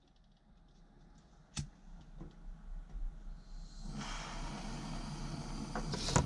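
A few light clicks and knocks of parts being handled. About four seconds in, a steady hiss starts and holds: a blowtorch burning while a faucet fitting is soldered.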